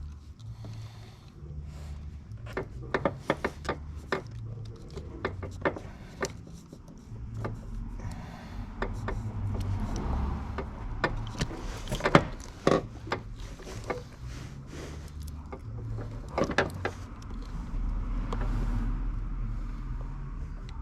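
Scattered clicks, knocks and rattles of plastic trim, clips and hand tools being worked inside a car while its seat belt unit is removed, the sharpest knock about twelve seconds in, over a low steady hum.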